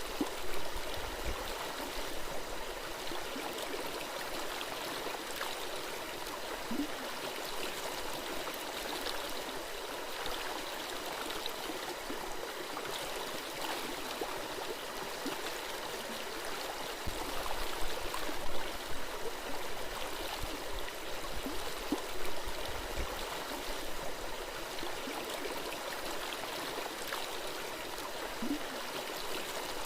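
Forest stream flowing and gurgling in a steady rush of water, with a few brief low bumps a little past halfway.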